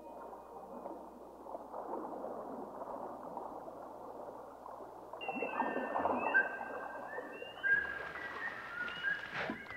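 Water noise as heard underwater. From about five seconds in, dolphin whistles join it: a run of short high pitched whistles, some gliding in pitch, with a sharp click near the end.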